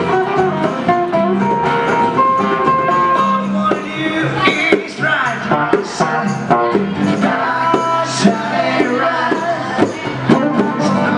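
Live acoustic band playing: strummed acoustic guitars and a hand drum, with a harmonica holding long notes in the first few seconds.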